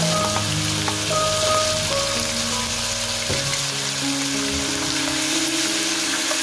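Raw chicken gizzards and chopped green onion sizzling steadily in hot oil in a wok, stirred with a wooden spatula, with one light knock partway through. Soft background music with held notes plays underneath.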